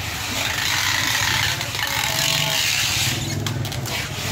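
An engine running steadily with a low hum, under a loud, even hiss of market background noise.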